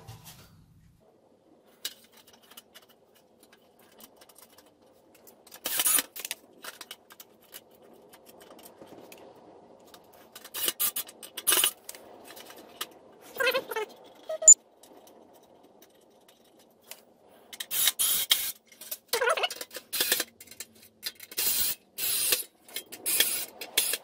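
Metal clinks, scrapes and clatter as a tumble dryer's replacement heating element and its sheet-metal housing are handled and screwed together: a few short clusters with a sharp ping near the middle, and a dense run of clattering near the end.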